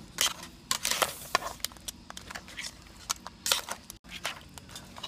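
Crab pieces being mixed with a wet ground tomato, onion and ginger paste in an aluminium kadai: irregular sharp clicks and scrapes of shell, and later a metal spatula, against the pan.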